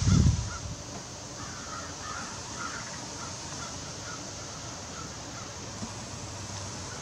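A flock of American crows cawing, many short overlapping calls from several birds until about five seconds in. A low rumble fills the first half-second.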